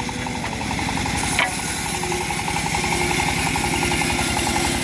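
Engine of a homemade bandsaw sawmill running steadily with an even, fast pulse, and a single sharp click about a second and a half in.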